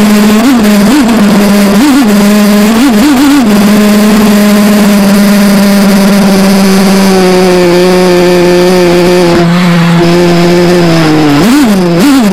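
Carnatic-style Indian classical music: a single melody line wavering in quick ornaments, then holding one long steady note that sags in pitch and glides back into ornaments near the end.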